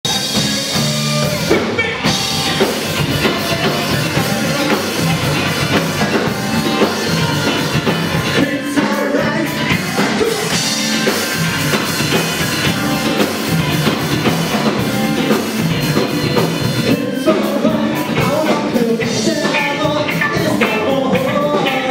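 Live rock band playing: a singer over electric guitars and a drum kit, steady and loud.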